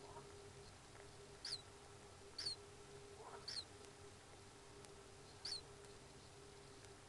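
Four faint, short, high chirps from a common kingfisher in its nest chamber, each dropping in pitch, spaced a second or two apart, over a steady faint hum.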